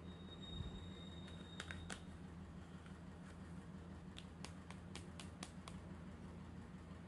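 Light clicks and taps of a hard plastic toy microscope being handled and turned over, a few about one and a half seconds in and a quick run of about eight clicks past the middle, over a steady low hum.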